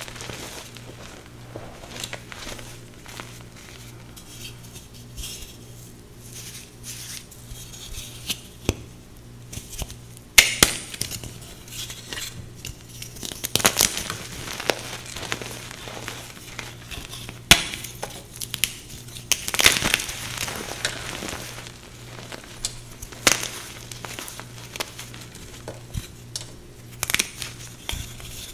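Hands crushing and crumbling pink reformed (paste-and-powder) gym chalk blocks in loose chalk powder: steady crunching and crackling, broken by several sharp snaps as pieces of block break off.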